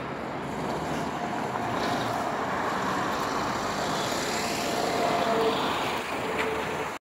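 Street traffic noise with wind on the phone's microphone: a steady haze that swells a little about a second in, then cuts off abruptly.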